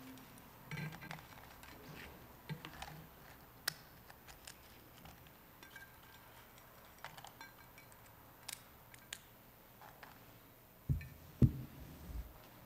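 Small gold liturgical vessels clinking and tapping lightly as they are handled over the chalice during the purification after Communion, with two dull knocks near the end as the vessels are set down on the altar.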